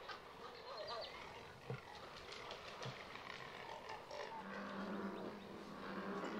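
Waterbirds calling at a nesting colony of egrets, herons and cormorants, with many short clicks through the calls. A steady low buzz comes in about four seconds in.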